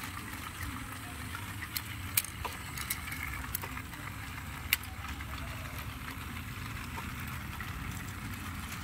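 Battery-powered toy trains running on plastic track: their small motors make a steady whirring hum. A few sharp plastic clicks come in the first five seconds as a toy wagon is handled and coupled.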